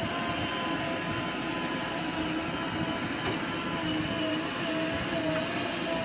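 JCB 3DX Xpert backhoe loader's diesel engine running steadily under load, with a faint whine that wavers up and down as the hydraulics work the backhoe arm to load sand into a tipper truck.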